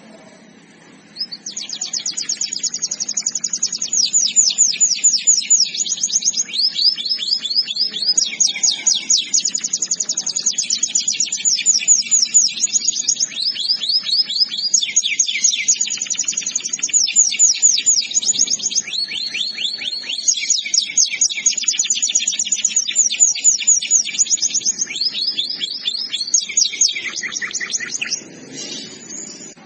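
Canary singing a long, unbroken song of rapid high trills. Each phrase is a fast run of repeated notes, and the song switches from one trill to the next every second or two. It starts about a second in and breaks off shortly before the end.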